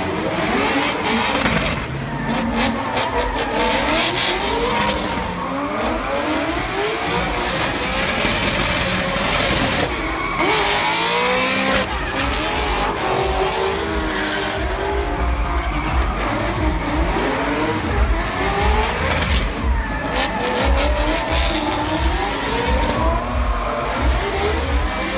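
Several BMW drift cars sliding in tandem, their engines revving up and down at high revs over the squeal of spinning tyres.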